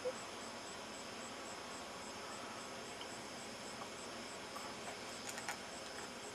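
A cricket chirping steadily, about three even chirps a second, over a faint background hiss, with a couple of faint clicks late on.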